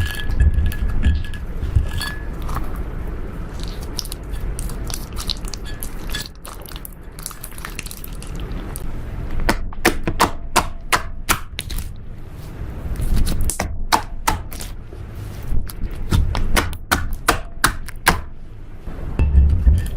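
Slime being squished and worked by hand, giving a run of sharp, crackly clicks and pops that come thick and fast during the second half.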